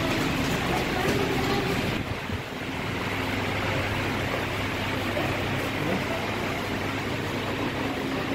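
Steady ambient noise of a rail station walkway and concourse: a continuous rumble with a low hum, dipping briefly about two seconds in.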